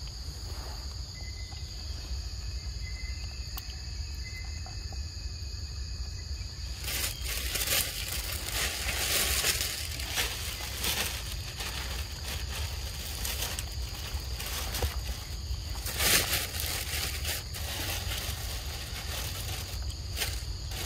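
Forest ambience: a steady high insect drone that stops abruptly about seven seconds in, after which irregular rustling takes over, with a few louder bursts, over a constant low rumble.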